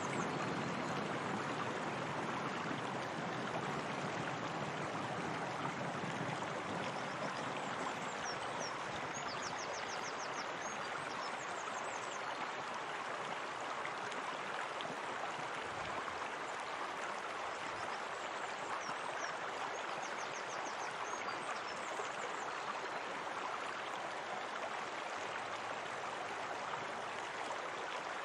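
Steady running water, like a stream or small cascade, flowing without a break, with faint high chirps now and then.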